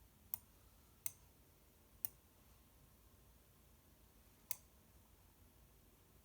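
Computer mouse clicked four times, sharp single clicks spaced unevenly over a few seconds, above a faint steady background hum.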